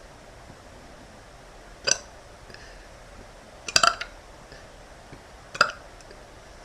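A girl's short, sharp burps, hiccup-like: one about two seconds in, a quick run of three a couple of seconds later, and one more near the end.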